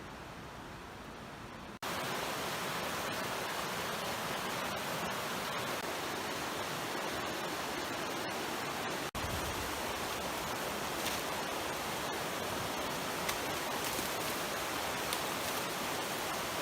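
A creek rushing steadily. There are brief drop-outs about two seconds in and again near the middle, and the flow is louder after the first.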